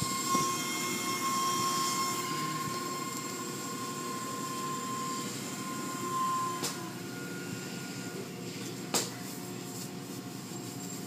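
Automatic car wash machinery running: a steady mechanical noise with a thin whine that cuts off about seven seconds in, and a sharp knock about nine seconds in.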